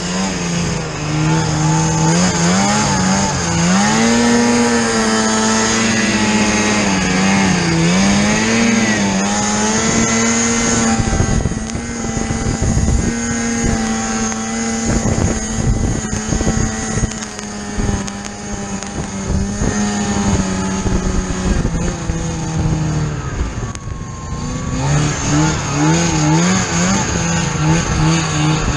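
Snowmobile engine running under throttle while riding, its pitch rising and falling. There is a run of irregular knocks in the middle, and near the end the engine eases off briefly, then pulls again.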